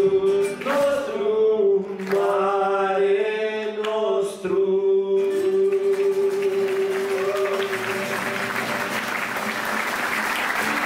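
A singing voice holds one long, steady note. Applause rises about six seconds in and continues.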